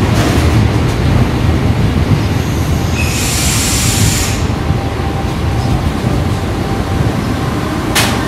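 Freight train of container wagons passing close at speed: a steady rumble of steel wheels on the rails. About three seconds in there is a brief high hiss lasting about a second, and a sharp knock near the end.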